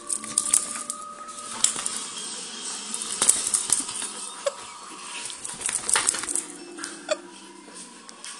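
A beabull dog thrashing, rolling and rubbing its head on a quilted bedspread. Fabric rustles and scratches, broken by irregular sharp clicks and clinks.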